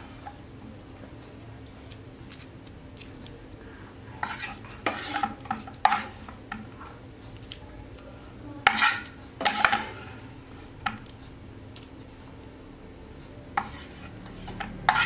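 A spatula scraping and knocking against a frying pan and plate in several short bursts, starting about four seconds in, as thick salted-egg sauce is scooped out of the pan onto fried tofu.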